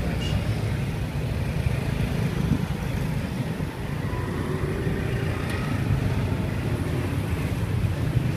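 Steady low rumble of road traffic passing a street stall.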